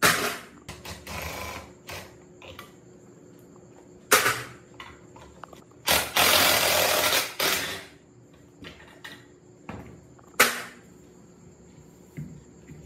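Hand work on a rusted metal water pump: a run of sharp knocks and clatters, the loudest at the start, about four seconds in and about ten seconds in, with a harsh scraping rush lasting about two seconds in the middle.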